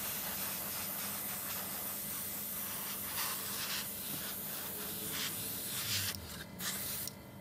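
Iwata HP-CS gravity-feed airbrush spraying thinned acrylic paint at about 22 psi: a steady hiss of air and paint mist that swells slightly a couple of times as the trigger is worked, then stops shortly before the end.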